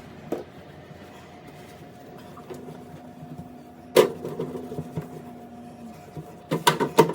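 Clatter of things being handled in a refrigerator: a sharp knock about four seconds in, then a quick run of rattling knocks near the end, over a faint steady hum.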